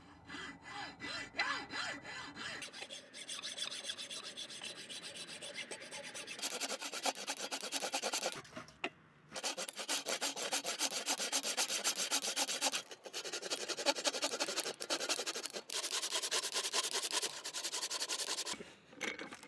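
Hand hacksaw cutting through a carved wooden block in fast back-and-forth strokes, pausing for about a second partway through.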